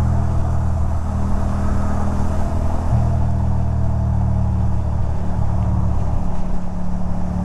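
2006 Ducati Monster 620's air-cooled L-twin engine running steadily at highway cruising speed, over a constant rush of wind and tyre noise on the wet road. The engine note shifts slightly about three seconds in.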